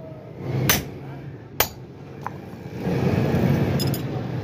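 Hammer striking a hand-held cold chisel on a flat steel bar over an anvil: two sharp metallic blows with a short ring, a little under a second apart. Later a few seconds of duller, noisier sound.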